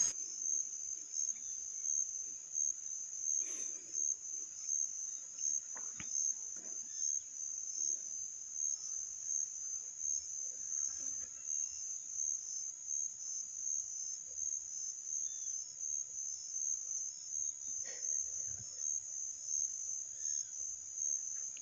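Insects chirring steadily in one high, shrill tone with a regular pulse of a couple of beats a second. There is a faint click about six seconds in.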